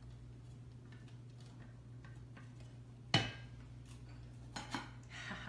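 A single sharp knock about three seconds in, then a few lighter taps near the end, from an upturned metal bundt pan on a serving plate as the monkey bread is coaxed out of it. A steady low hum runs underneath.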